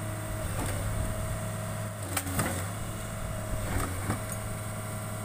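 A heavy machine's engine running steadily at low revs, with a few sharp knocks about two and four seconds in.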